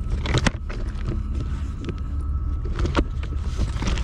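Helmet camera handled on railway ballast stones: scattered clicks and knocks of stone and camera housing, over a steady low rumble.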